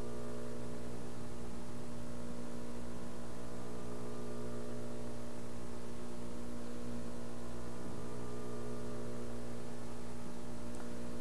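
Steady electrical mains hum with a stack of even overtones, holding one pitch and level.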